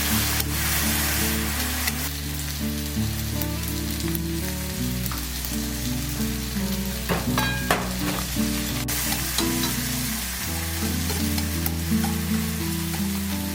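Mushrooms and salmon sizzling in butter in a frying pan as they are stirred, with a few sharp clicks of the utensil against the pan. Soft background music plays underneath.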